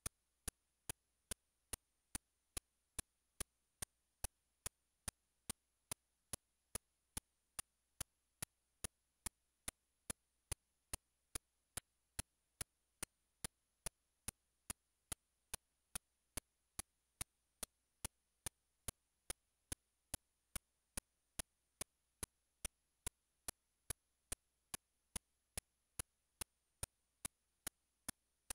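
Sharp, evenly spaced ticking clicks, a little over two a second, over an otherwise nearly silent background.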